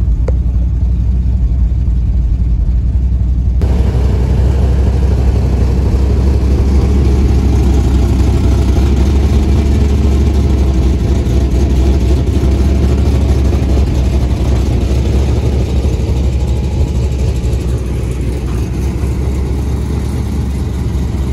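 LS V8-swapped Chevrolet OBS pickup's engine running steadily at idle, loud and low. It is heard muffled from inside the cab at first, then more openly from outside after about four seconds.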